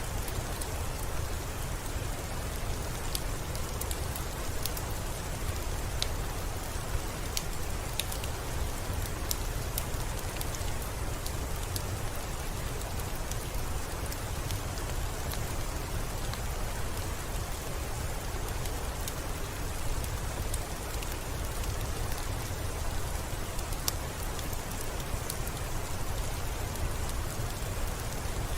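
Steady rain: an even hiss, with many individual drops tapping sharply.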